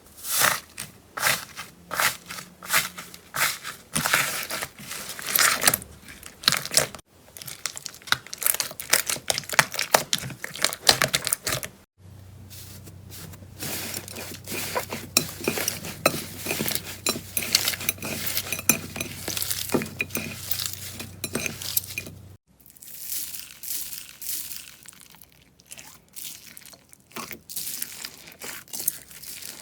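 Hands squeezing, pressing and poking slime, making dense crackling and popping clicks. The sound comes in several separate clips that change abruptly a few times.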